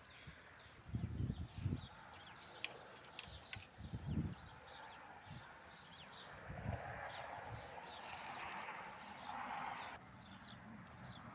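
Birds chirping throughout in quick short calls. A few irregular low thumps come in the first half, and a soft rushing noise swells about six seconds in and drops away near the end.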